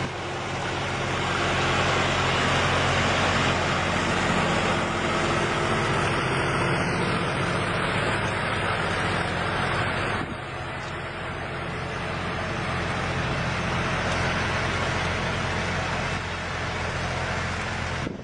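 Tractor engine running steadily, its level dropping slightly about ten seconds in.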